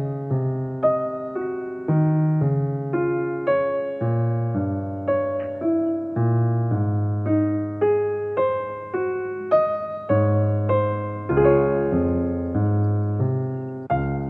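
Soft background piano music: a slow, gentle keyboard piece of single notes struck and left to fade over low held notes.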